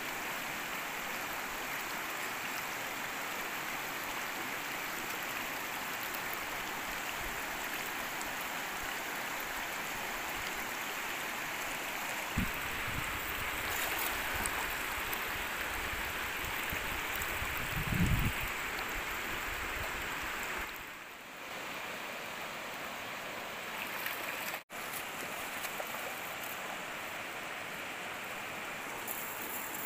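Steady rush of flowing stream water, with a couple of low thumps about twelve and eighteen seconds in.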